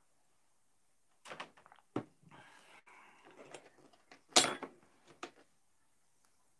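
Knife and fork clinking and scraping on a plate while food is cut, with several short knocks of tableware on a table. The loudest knock comes a little past four seconds in.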